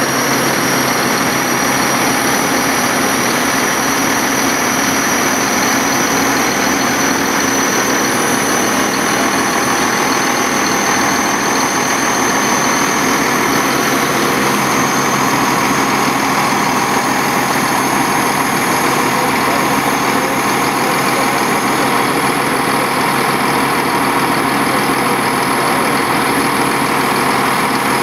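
Heavy truck engine running at a steady idle while it powers the hydraulic hook-lift arm. A thin high whine drifts slowly lower throughout.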